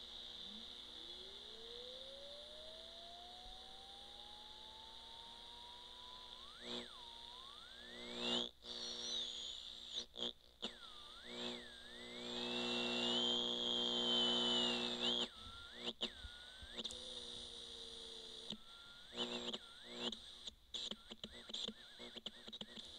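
Circuit-bent clock radio's speaker giving out electronic whistles and squeals: a steady high whine under tones that glide in pitch. One slow rising sweep takes the first several seconds; after that come warbling, stuttering tones that jump up and down and cut in and out, loudest just past the middle.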